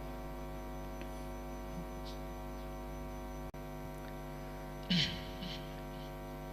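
Steady electrical mains hum with its stack of harmonics, briefly dropping out about halfway through, and a short louder sound about five seconds in.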